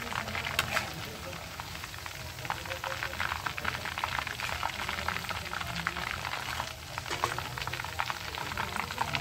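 Chicken pieces deep-frying in hot oil in an iron kadhai: a steady, dense crackling sizzle, with a few sharper pops.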